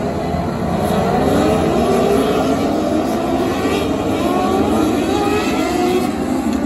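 A pack of winged 600cc micro sprint cars accelerating together: many high-revving motorcycle-type engines climbing in pitch at once, growing louder about a second in.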